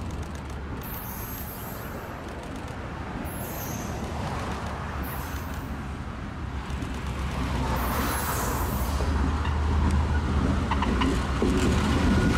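Pacific Harbor Line diesel locomotive approaching at low speed and drawing alongside, its engine rumble steady and growing louder over the last few seconds. A few light clicks from the wheels on the rails come near the end.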